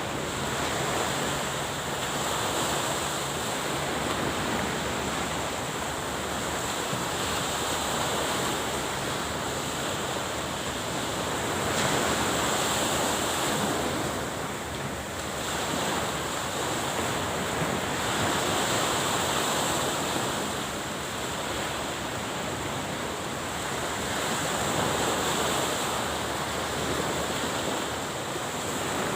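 Sea waves washing at the shoreline, a steady rush that swells and eases every few seconds, with wind on the microphone.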